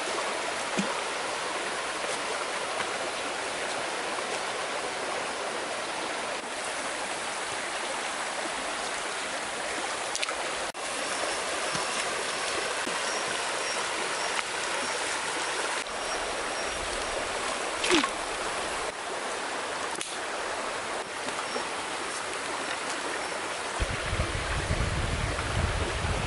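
Steady rush of a rocky forest stream, with one sharp knock about two-thirds of the way through. Near the end, wind rumbles on the microphone.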